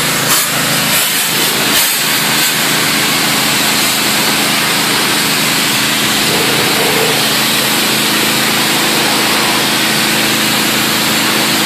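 Pressure washer running steadily, its engine's steady drone under the hiss of the high-pressure water jet spraying onto pond rocks. A few short knocks in the first two seconds.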